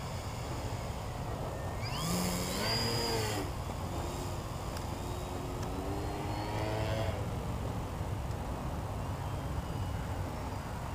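Electric motor and propeller of an E-flite Mini Funtana X radio-control plane whining in flight. The pitch swings up and back down about two seconds in, then climbs again from about four to seven seconds as the throttle changes.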